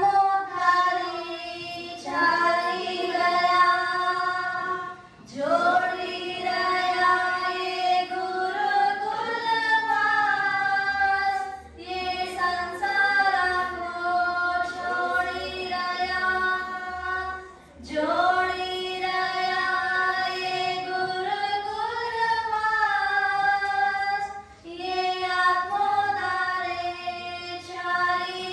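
Female voice singing an unaccompanied devotional song in long held phrases, with short breaks between them.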